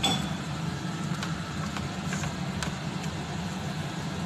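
A spatula stirring chicken filling in a frying pan, tapping the pan in a few light clicks, over a steady low mechanical hum.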